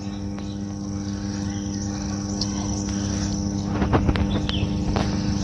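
A steady low machine-like hum made of several held tones, with a few faint clicks and short high chirps about four seconds in.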